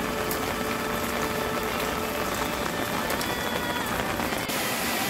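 Steady summer monsoon rain falling on a wet asphalt street and paving stones: a dense, even hiss of drops. Near the end it grows louder and hissier.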